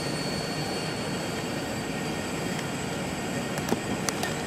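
Steady rumbling background noise of a busy railway station, with a few sharp clicks near the end.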